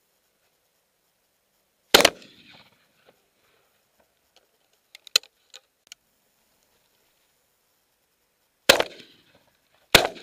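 Three shotgun shots at pigeons: one about two seconds in, then two more near the end, just over a second apart. A short run of sharp clicks comes between them.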